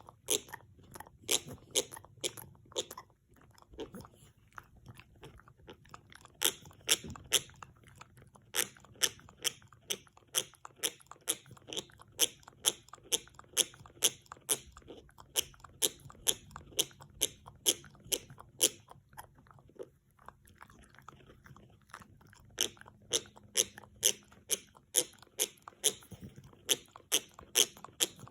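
French bulldog gnawing on a hard antler chew: a steady run of sharp crunching clicks of teeth on antler, about two to three a second, with short pauses a few seconds in and again about two-thirds of the way through.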